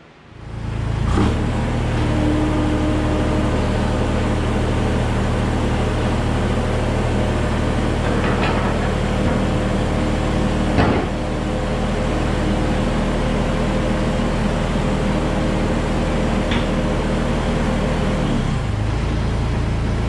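Terex PT30 compact track loader's diesel engine running steadily, with a few light clanks over it; its note shifts slightly near the end.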